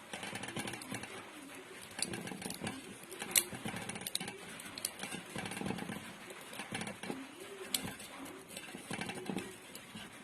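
Irregular light clicks and rustles of copper winding wire being pushed into the stator slots of a grinder motor during rewinding, with one sharper click about three and a half seconds in.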